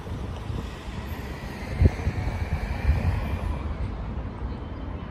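Wind buffeting the microphone in uneven gusts, a low rumbling noise, with one sharp thump of a gust about two seconds in.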